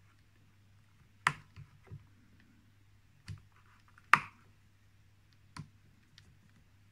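A handful of sharp clicks and knocks as hands handle the motor bracket and cable on a Sherline lathe's headstock. The two loudest come about a second in and about four seconds in.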